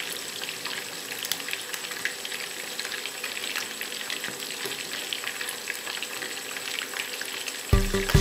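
Chicken deep-frying in hot oil in a stainless steel pot: a steady sizzle full of small crackles and pops. Background music cuts back in near the end.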